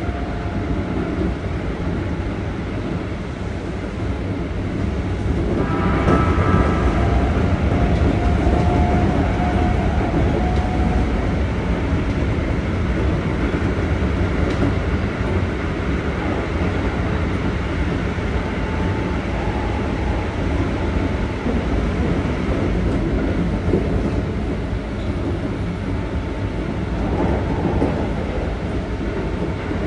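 Interior running noise of a Keikyu 1500-series train with Toyo GTO-VVVF traction equipment: a steady rumble of wheels on rail that grows louder about five seconds in, with a few whining tones rising out of it for several seconds.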